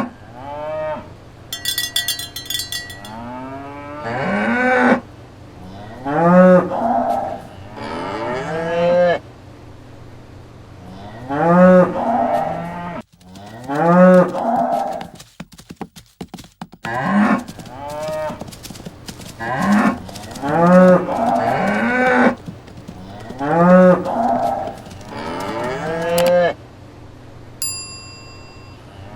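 Cattle mooing over and over, one call about every two seconds, each rising and falling in pitch. A bell jingles briefly about two seconds in, and a short ringing tone sounds near the end.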